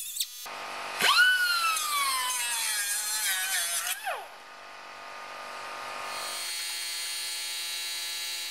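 Handheld grinder whining up to speed about a second in, its pitch sinking slowly as it grinds into the car's rusty body metal, then spinning down about three seconds later. A steady tone follows near the end.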